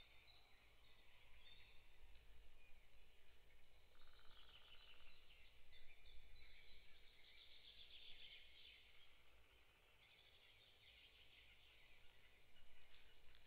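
Faint birdsong: several small birds chirping and singing, with a short buzzy trill about four seconds in, over a low rumble of wind on the microphone.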